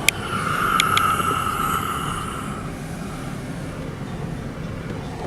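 Steady road and engine noise inside a moving car. A few sharp clicks come in the first second, and a brief high hum swells and fades over the first couple of seconds.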